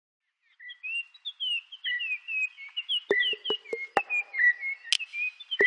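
Birds chirping and whistling in quick, short calls. About three seconds in they are joined by sharp, rhythmic percussive hits, each with a low note.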